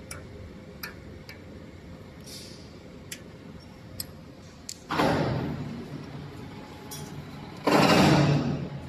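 Spiral duct forming machine working: a few light metallic clicks, then two loud sudden bursts of machine noise, the first about five seconds in and fading over a couple of seconds, the second near the end lasting about a second.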